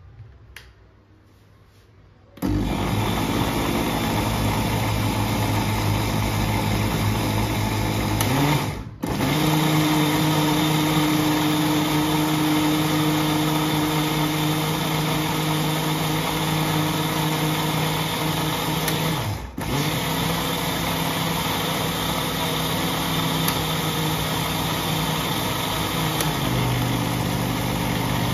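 Electric mixer grinder with a stainless steel jar switched on about two seconds in, its motor whirring steadily as it blends a thick shake of milk, bananas and oats. It drops out for a moment twice and starts straight up again.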